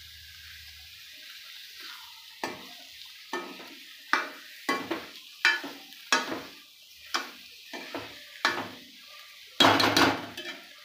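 Steel spoon scraping and knocking against a steel kadhai as masala-coated fish pieces are turned over while they fry, with sizzling underneath. The strokes come irregularly, roughly one a second from about two seconds in, the loudest near the end.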